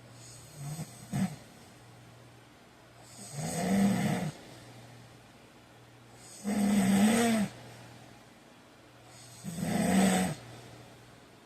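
A man snoring in his sleep: two short bursts about a second in, then three long snores about three seconds apart.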